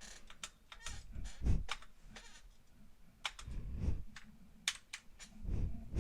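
Keys being pressed on a SteelSeries mechanical keyboard fitted with HyperX pudding keycaps: irregular plastic clicks, with a few dull thumps in between.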